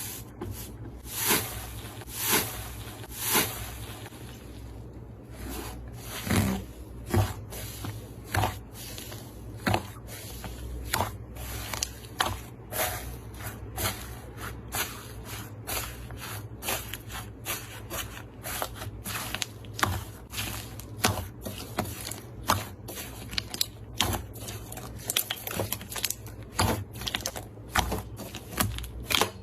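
Slime being squished and pressed by hand, giving sharp wet clicks and pops, about one a second at first and quicker, more irregular ones in the second half.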